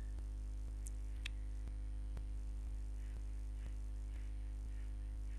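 Steady electrical mains hum and buzz in the recording, with faint ticks at fairly regular intervals and two brief high chirps about a second in.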